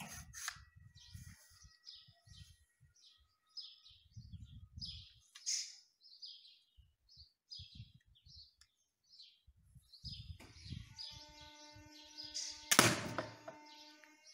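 Small birds chirping and singing throughout. Near the end comes a single loud sharp snap, the shot of a homemade wooden slingshot bottle-cap pistol.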